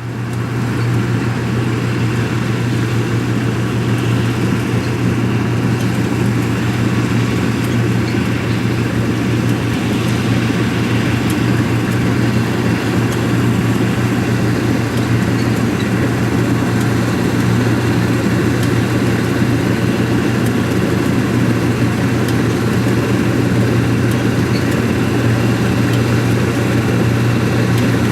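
Diesel farm machinery engine running steadily, with a strong low hum and a constant mechanical rush over it. It fades up at the start.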